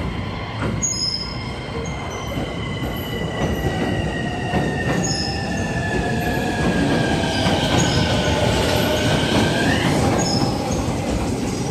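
A train running through the station over continuous wheel rumble. A high squealing tone slowly falls in pitch, then sweeps sharply upward about ten seconds in.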